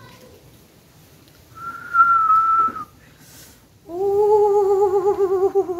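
A woman whistles one held note lasting about a second, then, from about four seconds in, gives a long wavering moan with a tremble in its pitch, a sound of pain.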